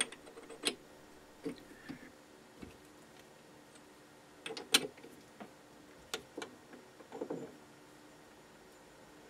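Scattered metallic clicks and knocks as a T-handle chuck key loosens the jaws of an independent four-jaw lathe chuck and a brass flywheel is handled free of the jaws. The lathe is stopped. The sharpest knock comes a little past halfway, with a short cluster of knocks near the end.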